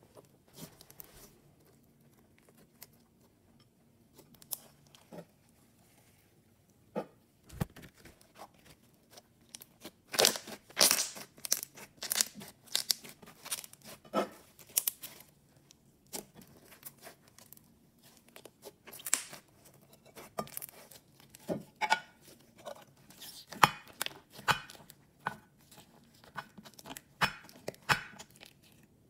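Slime being squeezed, folded and stretched by hand, giving sticky crackling pops and snaps. It is sparse at first, then busier and louder from about ten seconds in.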